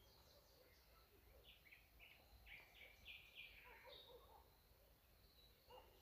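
Near silence with faint bird chirps: a run of short calls in the middle, over a quiet background hiss.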